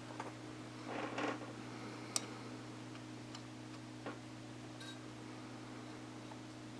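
Small metal parts of a two-lever mortise lock being handled and fitted back into the lock body: a short scrape about a second in, one sharp click about two seconds in, and a few fainter ticks, over a steady low hum.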